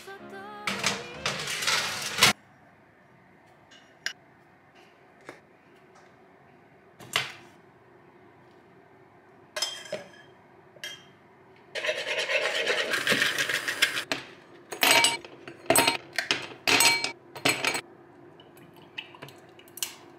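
Kitchen handling sounds of bowls, a steel saucepan and utensils. A loud clatter cuts off sharply about two seconds in. Scattered single knocks follow, then about two seconds of steady noise around the middle, then a quick run of clinks.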